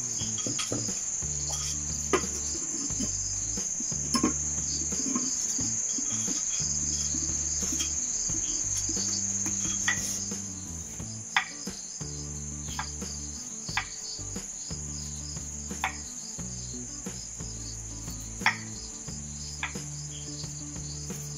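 Crickets trilling steadily at night, over soft low background music. In the second half a knife taps sharply on a wooden board every second or two as wild breadfruit (wal del) is cut.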